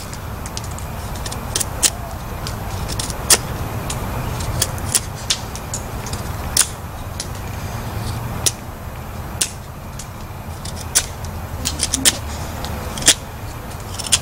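Knife blade whittling a wooden stick: sharp, irregular clicks and short scrapes as each cut bites and a shaving comes off, over a steady low rumble in the background.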